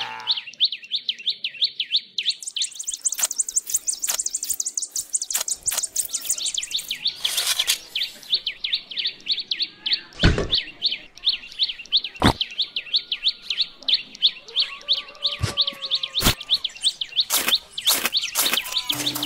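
Small birds chirping in a fast, steady run of high chirps, several a second, with a second, higher-pitched bird joining from about two seconds in for about five seconds. A few sharp knocks and taps cut through, the loudest about ten seconds in, as small model pieces are set down by hand.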